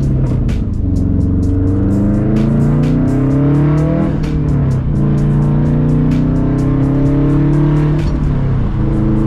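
Car engine accelerating: its pitch climbs, drops sharply at gear changes about four seconds in and again near eight seconds, and holds steady in between. Background music with a steady beat plays along.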